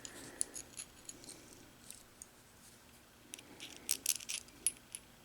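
Small metal parts of a scope mount and its replacement screw being handled and fitted together: a scatter of light metallic clicks and ticks, a cluster in the first second and another, louder run about three to four and a half seconds in.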